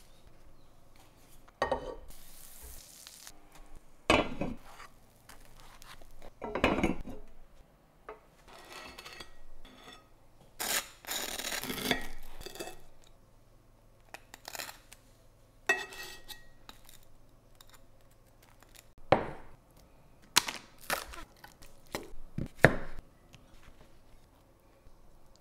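A series of separate kitchen handling sounds: a knife sawing through a crisp toasted sandwich on a ceramic plate with cutlery scraping and clinking, and short knocks and rustles of bread and toppings handled on a wooden board.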